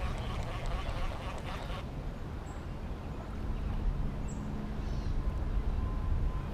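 Duck quacking in a quick run of repeated calls that cut off abruptly about two seconds in, followed by a low steady rumble.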